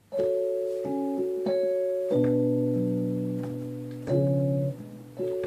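Instrumental intro played on a keyboard, with an electric-piano-like sound: held chords that ring steadily and change about five times, starting just after a moment of silence.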